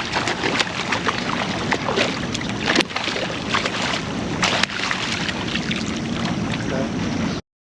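Wind buffeting the microphone over water sloshing at a kayak, with many short splashes and knocks throughout, while a hooked redfish is fought. It cuts off suddenly near the end.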